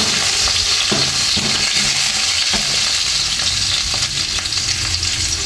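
Minced garlic sizzling steadily in hot oil in a wok while it is stirred, with a few knocks of the stirring utensil against the pan.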